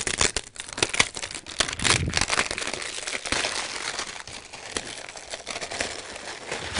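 Plastic shrink-wrap being peeled off a cardboard box and crumpled in the hands: continuous crinkling and crackling of thin plastic, a little louder around two seconds in.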